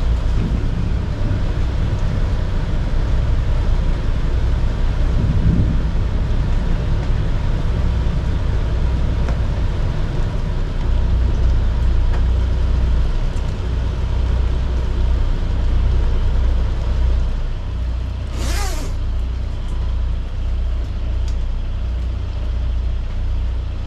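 Catamaran's diesel engine running steadily at a low hum while the boat is re-anchored. A short hiss comes about 18 seconds in.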